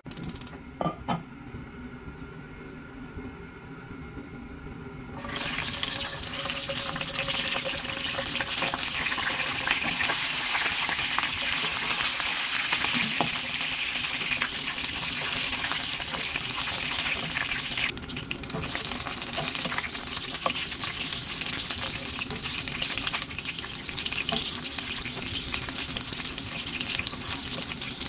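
Two sharp clicks about a second in, then from about five seconds in the loud, steady sizzle of whole slit eggplants frying in hot oil in a nonstick wok.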